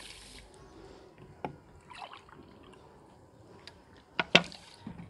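Water poured from a drinking glass onto sugar in an aluminium pan to start a sugar syrup: a short pour at the start and another about four seconds in, with a few small clicks and a sharp knock just before the second pour.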